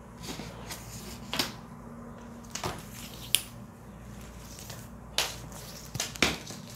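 Scattered taps and clicks of drafting tools handled on a table: a plastic ruler being set down and a measuring tape picked up, about six short knocks over a faint steady hum.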